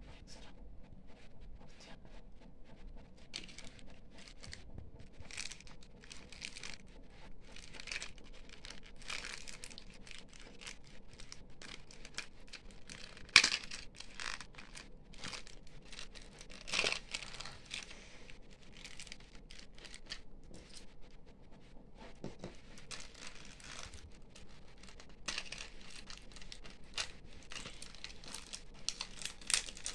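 Thin plastic candy wrapper crinkling and tearing as it is picked open by hand: a run of irregular rustles, with two louder, sharper rips around the middle.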